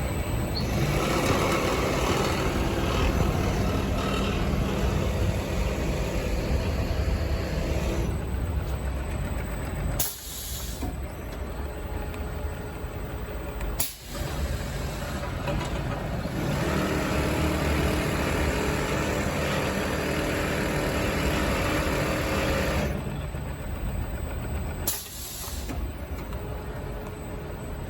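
Mattress-making machinery running: a steady mechanical noise with hiss, interrupted by several abrupt breaks.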